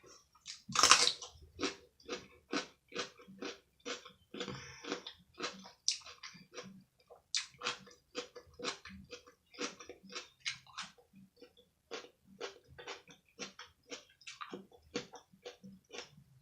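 Close-up chewing of crunchy cucumber slices: a steady run of wet crunches, about three a second, with a louder bite about a second in.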